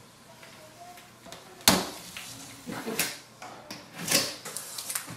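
Box cutter slicing the packing tape along the top of a cardboard box: one sharp scrape about a second and a half in, then several shorter scraping strokes.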